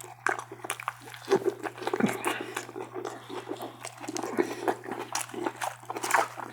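Close-up chewing and mouth sounds of a person eating: irregular wet smacks and small clicks, over a steady low hum.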